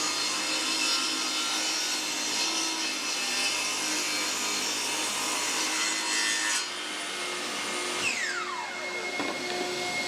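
Table saw ripping a length of plywood, the blade cutting steadily through the wood until the cut ends about six and a half seconds in. About a second later the saw is switched off and its motor winds down with a falling whine, while a steady hum carries on underneath.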